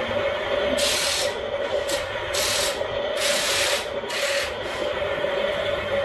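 Toy RC excavator digging in sand: its small electric motors whine steadily while the bucket scrapes and scoops, giving several short hissing bursts of sliding sand about one to four and a half seconds in.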